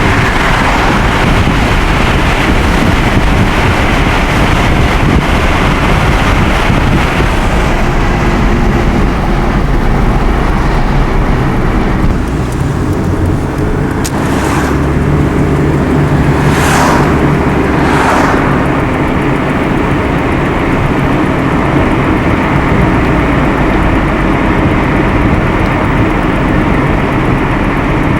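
Steady road and engine noise of a moving car, heard from inside the car, with three brief whooshes about halfway through.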